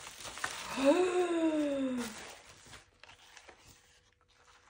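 Bubble-wrap packaging crinkling as it is handled, with a woman's long wordless "ooh" about a second in that rises, then falls away. After about three seconds only faint rustles remain.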